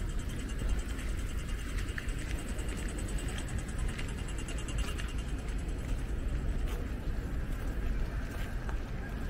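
Low, steady rumble of city street traffic. Over it, a pedestrian crossing signal ticks rapidly and fades away in the first half, with a few scattered clicks.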